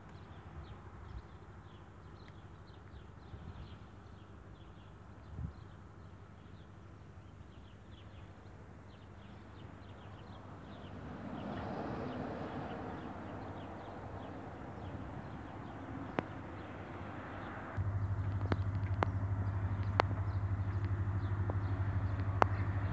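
Outdoor ambience with small birds chirping faintly, giving way near the end to a louder steady low rumble with scattered sharp clicks.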